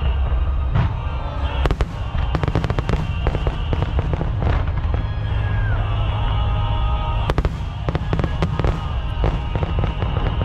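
Fireworks bursting in rapid clusters of sharp cracks and crackles, about two seconds in and again about seven seconds in, over loud music with a heavy low rumble.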